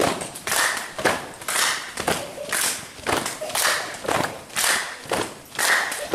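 A regular beat of sharp strokes, about two a second, from a group doing a quick exercise drill.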